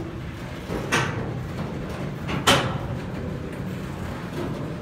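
Loaded tank-container flatcars of a freight train rolling slowly past on the rails: a steady low rumble of the wheels, with two short, sharp metallic clanks about a second and two and a half seconds in.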